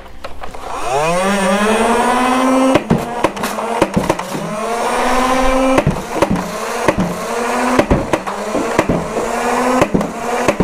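Nerf Rival Charger MXX-1200 foam-ball blaster firing: its flywheel motors spin up with a whine rising over about two seconds, then about a dozen shots crack off in quick succession. The whine dips at each shot and dips more deeply twice in the burst.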